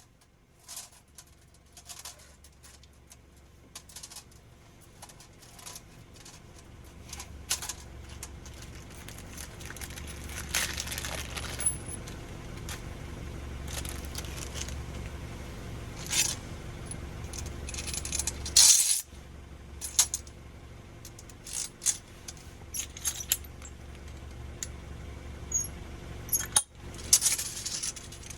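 Light metal clinks, clicks and scrapes of hand tools and fittings being handled while a flexible water supply pipe is worked. A low steady hum comes in a few seconds in and cuts out for a moment about two-thirds of the way through.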